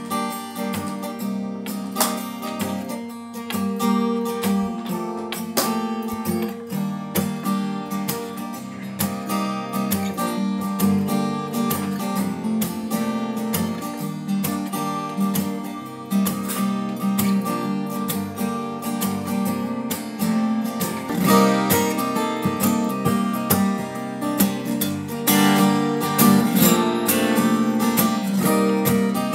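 Two steel-string acoustic guitars played together as a duet, with strummed and picked chords and a melody. The playing grows louder about two-thirds of the way in.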